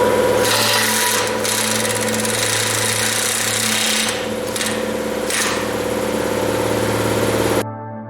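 Handheld power tool running under load, dipping briefly a few times and stopping suddenly near the end.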